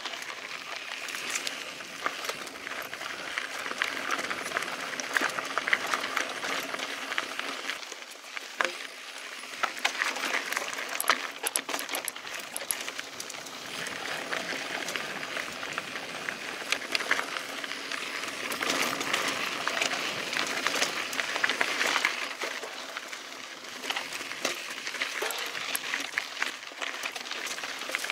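Mountain bike rolling along a dirt and gravel trail: tyres crunching over the ground, with frequent sharp clicks and rattles from the bike.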